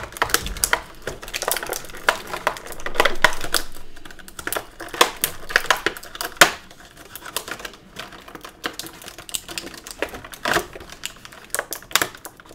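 Irregular sharp clicks and crackles of stiff clear plastic packaging being handled as action-figure accessories are worked out of their plastic tray, with a denser rustling stretch about three seconds in.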